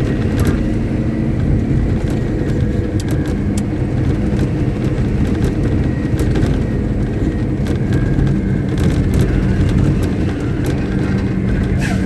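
Caterpillar 777D haul truck's Cat 3508B V8 diesel engine running steadily at a constant speed during a stationary ground test.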